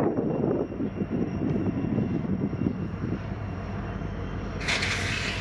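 Diesel freight locomotive running with a steady low rumble, wind buffeting the microphone early on. Near the end comes a short, sharp burst of hissing air.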